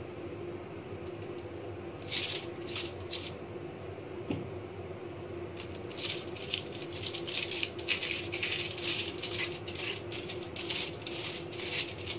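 Silicone pastry brush stroked back and forth over oiled aluminium foil on a baking tray: crisp, crinkly scratching strokes. A short run comes about two seconds in, then a steady run of several strokes a second from about halfway on.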